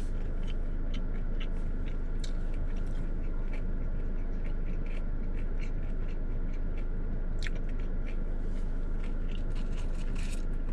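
A person chewing a crunchy breaded boneless chicken wing coated in ranch and Parmesan crumbles: faint scattered crunches and mouth clicks over a steady low electrical hum.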